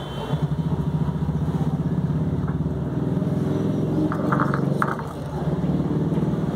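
An engine running steadily with a low, pulsing rumble, with a brief cluster of higher clicks about four seconds in.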